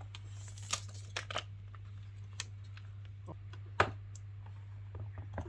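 Scattered light clicks and taps of a phone and its packaging being handled, with one sharper click near the end, over a steady low hum.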